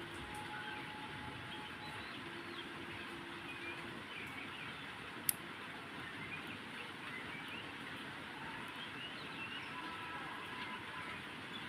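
Quiet outdoor background with scattered bird chirps, a steady low hum for the first few seconds, and a single sharp click about five seconds in.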